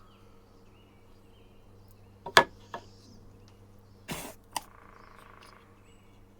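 A few sharp knocks, the loudest about two and a half seconds in, and a short scraping swish just after four seconds. A steady low hum and faint bird chirps sit underneath.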